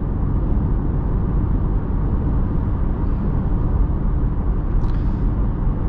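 Cabin noise of a 2021 Audi Q3 cruising: a steady low rumble of tyres on the road with the engine under it.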